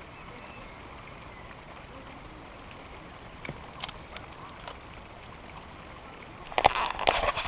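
Steady outdoor background hiss with a few faint clicks. From about six and a half seconds in, loud close-up knocking and rustling as the camera is handled and moved.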